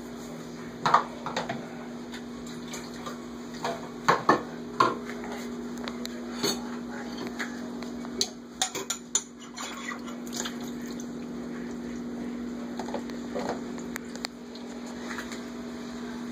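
Dishes, a plastic container and pans knocking and clattering irregularly in a stainless steel kitchen sink as a small child handles them, over a steady hum.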